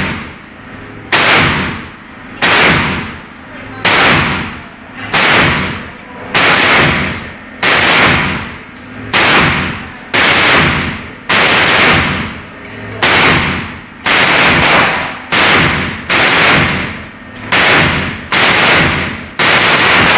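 Draco AK-pattern pistol in 7.62x39mm fired semi-automatically, a steady string of about two dozen shots roughly one a second, each with a long echo off the walls of an indoor range.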